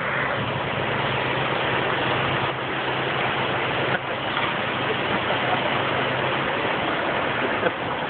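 Heavy truck engines running on an indoor arena floor: a steady low engine hum under a dense, noisy rumble. The hum fades out about six and a half seconds in.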